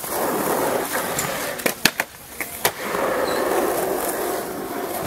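Wheels rolling across a concrete skatepark ramp in two long runs, with a quick series of sharp clacks and knocks from landings and coping hits between them, a little under two seconds in.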